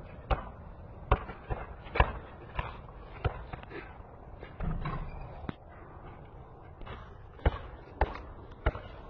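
Basketball being dribbled on a concrete court: a series of sharp, irregular bounces, some in quick pairs, with a pause of about two seconds in the middle.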